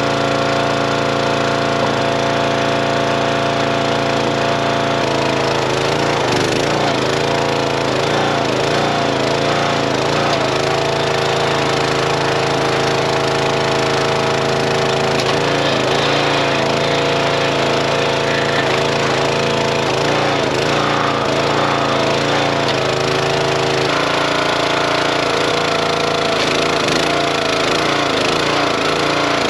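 Small gas engine of a Dirty Hand Tools 25-ton hydraulic log splitter running steadily, with the wood creaking and cracking as rounds are split. The engine's note changes about five seconds in and wavers while the ram works under load, then shifts again a few seconds before the end.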